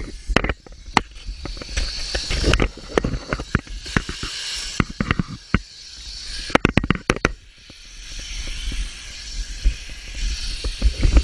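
Handling noise from a camera in a waterproof case moving against a plastic kayak: irregular knocks, clicks and scrapes over a low, muffled rumble, with a quick run of clicks a little past halfway.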